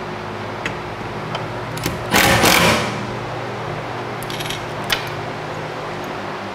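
Cordless impact driver with a socket extension driving a fastener into a wall bracket, in one short loud burst of under a second about two seconds in. Light clicks of the socket and metal bracket come before and after, over the steady hum of shop fans.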